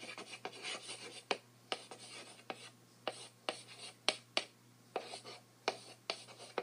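Chalk writing on a blackboard: short scratchy strokes with sharp taps from the chalk every half second or so.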